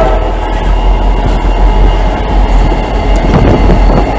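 Train passing close by: a steady, loud rumble of wheels on rail with some clacking. The tail of a horn blast cuts off right at the start.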